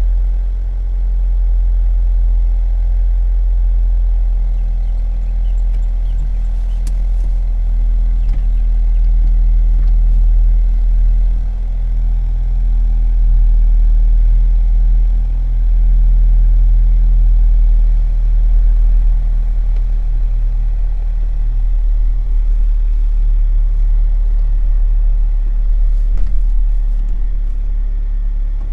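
Honda Civic Type R EP3's 2.0-litre four-cylinder i-VTEC engine running continuously with a heavy low rumble, its pitch drifting only slowly without sharp revs.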